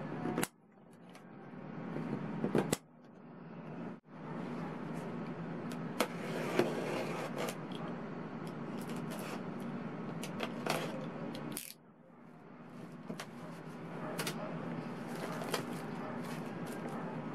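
A cardboard box being unpacked: plastic strapping cut with scissors, then the tape and flaps pulled open, giving scattered clicks, rustles and scrapes over a steady low hum. The sound cuts out abruptly a few times.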